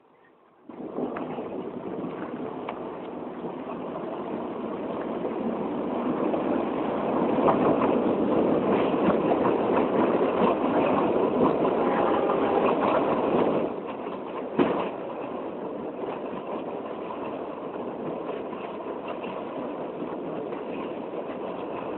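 Passenger train passing close by, a rumble of wheels on rails with many small clicks in it. It builds up over several seconds, drops off sharply about two-thirds of the way through, and a single sharp knock follows a second later before a steadier, quieter rumble.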